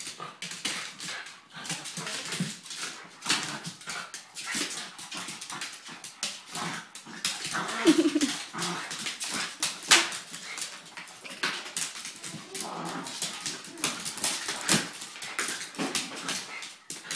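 Two small dogs play-fighting on a hardwood floor: scrabbling paws and claws clicking on the wood, mixed with dog vocal noises, including a short pitched whine about eight seconds in.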